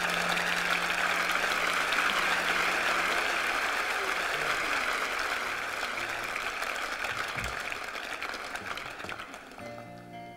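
Audience applauding, slowly dying down. Near the end an acoustic guitar starts to play.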